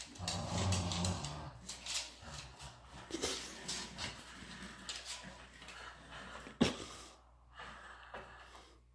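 Miniature schnauzer tugging hard on a rope toy: a low growl for about the first second and a half, then snorting breaths and claws clicking on the wooden floor. There is one sharp knock about six and a half seconds in.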